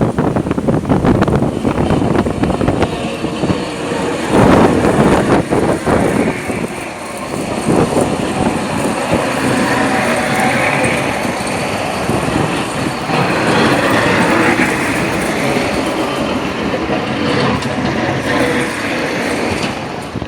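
Blizzard wind gusting hard against the microphone as a loud, unbroken rush that surges and eases, with its strongest gust about four seconds in.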